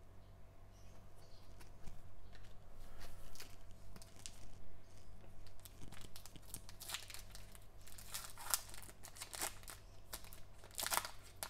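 A foil trading-card pack being crinkled and torn open by gloved hands. The crackles are irregular and sparse at first, then grow busier and louder in the second half as the wrapper is pulled apart.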